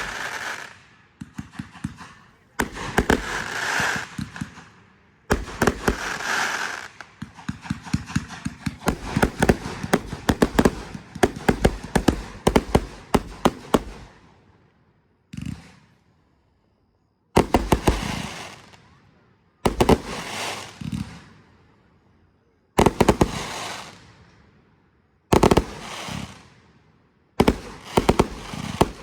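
Fireworks going off in a series of loud bangs and crackles. Through the middle comes a dense stretch of rapid crackling, then single bangs every two to three seconds, each dying away.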